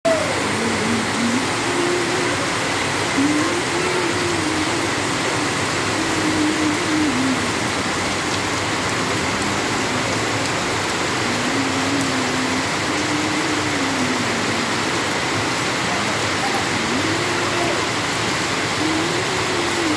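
Steady heavy rain falling on coconut palm fronds and a clay-tile roof, an even rushing hiss.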